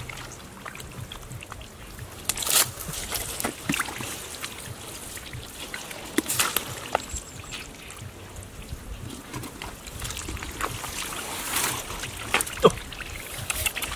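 Irregular splashing and sloshing of shallow muddy water as hands and bare feet work through the mud, with trickling in between and a few sharper splashes.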